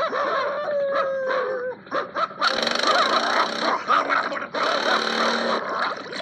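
Cartoon soundtrack: a dog howls in one long note that slides downward for nearly two seconds, then splashing water starts about two and a half seconds in.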